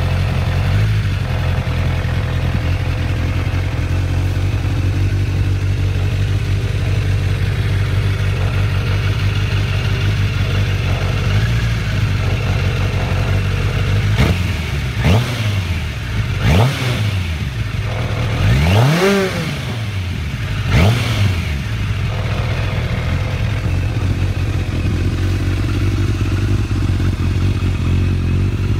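An engine idling steadily, revved up and back down about five times in quick blips around the middle, with the biggest rev shortly before the others stop, then settling back to a steady idle.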